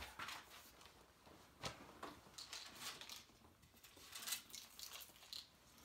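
Sheets of paper rustling and small objects being picked up and set down on a table, in short scattered bursts, as a cluttered table is straightened up.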